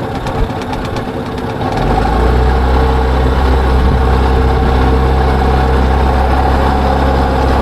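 A small flat-bottom boat's outboard motor running; about two seconds in it gets louder as the throttle is opened, then holds a steady pitch.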